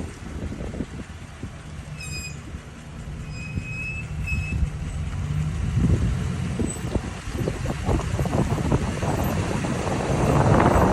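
Ram 1500 pickup's brakes giving three short, high squeals about two to four and a half seconds in, the brake noise that shows up as the truck comes to a full stop. Then low engine and road rumble grows louder as the truck moves off.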